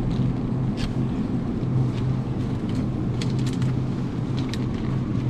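Clear plastic quail-egg cartons being handled, giving scattered crinkles and clicks about a second in and again over the last couple of seconds. Under them runs a steady low hum.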